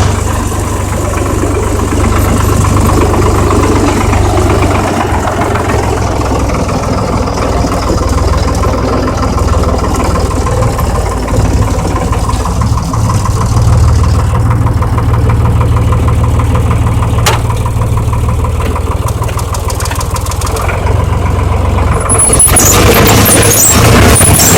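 Rivière-Casalis KR 40 tractor engine running at a steady idle. About 22 s in, a louder, rougher noise comes in over it.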